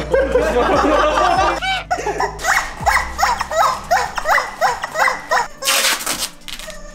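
Rubber squeaky chickens taped to sneakers squeaking underfoot: a quick jumble of squeaks, then a regular series of about three a second, one with each step. Near the end, a long rip of adhesive tape being pulled off its roll.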